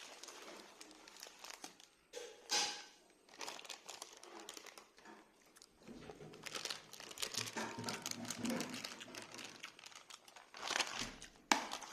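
Faint crinkling and rustling of food packaging being handled, with scattered light clicks. There is a louder rustle about two and a half seconds in, and the sound is busiest in the second half.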